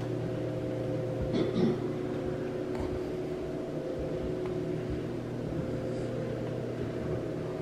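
Steady machine hum made of several constant tones over a low drone, the kind of steady hum that building ventilation or equipment gives off in a small room.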